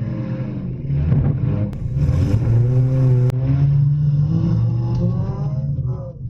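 Demolition derby car engines revving hard, the pitch climbing and falling repeatedly.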